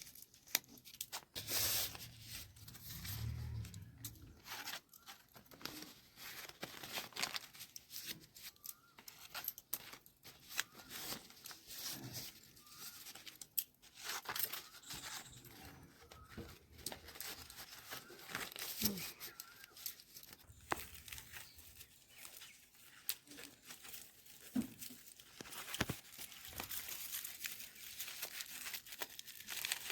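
Irregular rustling, crinkling and tearing sounds with many scattered sharp clicks and taps.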